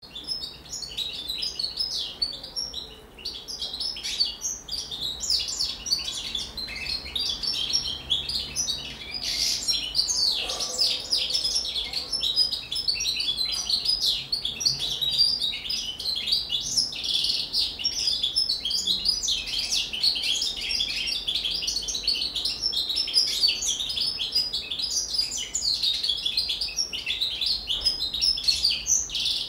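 Caged finch singing a continuous, rapid, high twittering song in the goldfinch style (an 'incardellato' song, learned from goldfinches).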